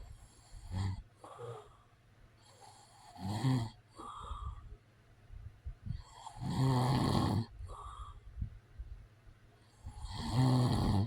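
A man snoring: three loud, rasping snores come about every three to four seconds, the middle one the longest and loudest. Each is followed by a softer, shorter breath out.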